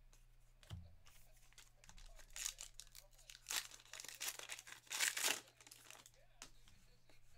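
Plastic wrapper of a sealed baseball card pack being torn open and crinkled: a run of crackling tears, loudest toward the end. A light tap comes just under a second in.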